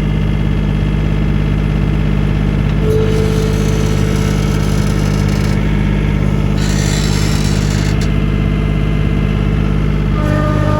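Skid steer loader's engine running steadily at a constant level, with a higher hiss joining in twice in the middle.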